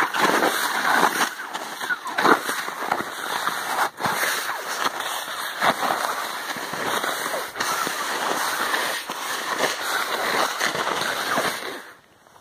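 Altai Hok skis shuffling through late-season spring snow, a continuous rough noise with a stroke at each stride, about one a second, that stops abruptly near the end when the skier halts.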